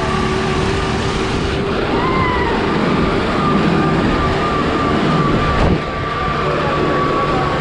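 Deutz-Fahr Agrolux 80 hp 4x4 tractor engine running hard under load as it drags a harrow through dry soil, with a steady high whine over the engine. A brief knock comes late on.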